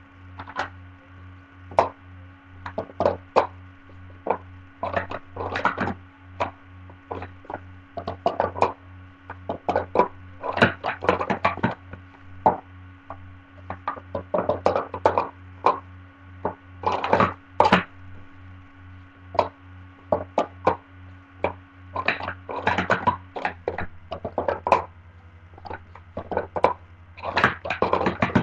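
Plastic sport-stacking cups clacking in fast flurries as they are stacked up into pyramids and swept back down, with short gaps between runs. A steady electrical hum sits underneath.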